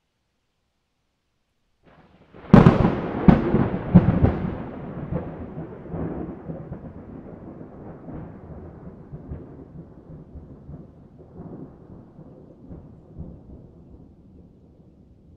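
Thunderclap: a sudden sharp crack about two seconds in, two more cracks within the next second and a half, then a long rumble that slowly dies away.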